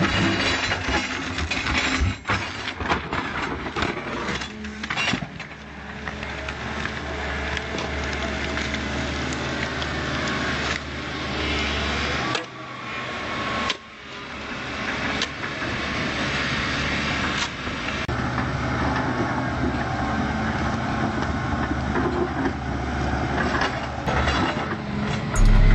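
Volvo EC210C excavator working: its diesel engine runs steadily under hydraulic load, with scattered knocks and cracks as the bucket digs through earth and wood. The engine note drops briefly about halfway through, then picks up again.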